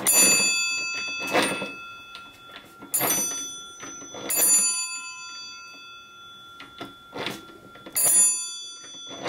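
Ringer of a c.1907 Montgomery Ward Diamond Bridging hand-crank telephone: its hammer strikes two nickel bells, one original and one replacement, in short bursts of ringing about every second and a half. There is a pause in the middle before two more rings near the end.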